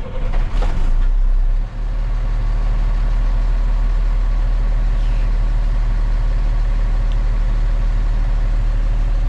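Mercedes diesel engine of a 2006 Freightliner M2 truck on a warm start: it turns over briefly, catches about a second and a half in, then settles into a steady idle.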